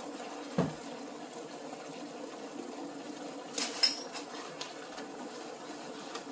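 Bulgogi in its sauce simmering steadily in a frying pan while metal chopsticks stir it, with a dull knock about half a second in and a quick cluster of sharp clicks of the chopsticks against the pan a little past the middle, the loudest sound.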